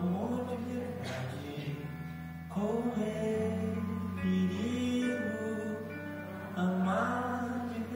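A live band playing a slow song on acoustic guitars and drums, with long held notes that slide up and down.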